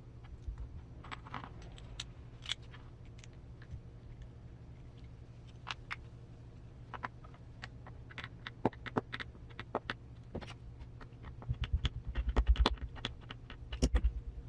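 Small plastic and metal RC gearbox parts clicking and tapping as they are handled and fitted into the transmission housing, with a denser run of clicks and low knocks near the end.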